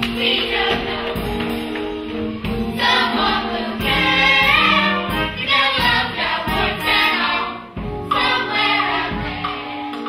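A school stage cast singing a musical-theatre number in chorus, with instrumental accompaniment.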